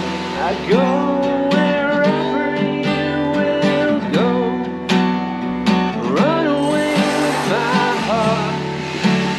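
A man singing while strumming an acoustic guitar, with a steady strummed rhythm under the sung melody.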